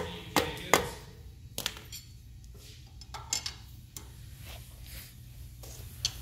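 Sharp metal clinks and knocks from tools and suspension parts being handled: three loud ones within the first second, then scattered lighter taps and knocks.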